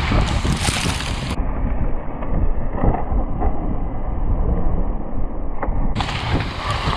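Wind buffeting the microphone of a downhill mountain biker's action camera at high speed, mixed with the hiss of tyres on snow. From about a second and a half in until near the end, the sound turns muffled.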